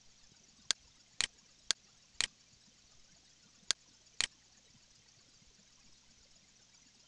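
Computer mouse button clicking: six sharp clicks in three pairs, each pair about half a second apart, all within the first four and a half seconds, over a faint steady hiss.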